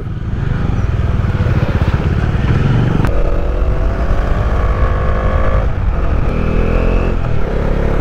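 Motorcycle engine running while riding at speed, with a heavy steady rumble. Its note holds steady through the middle, then climbs again near the end.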